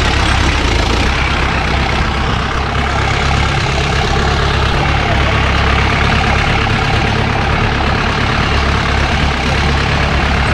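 Off-road jeep engine running steadily with a constant low rumble, mixed with the wide, even noise of the vehicle riding over a rough, potholed track.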